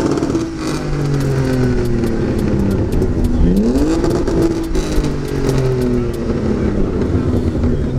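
Car engine revving: the pitch is high at the start and falls away over a couple of seconds, then climbs sharply again about three and a half seconds in and falls away slowly once more.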